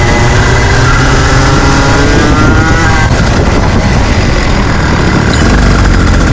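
Junior Rotax 125cc two-stroke kart engine running at racing speed, its note rising and falling through the first few seconds, then turning rougher and noisier.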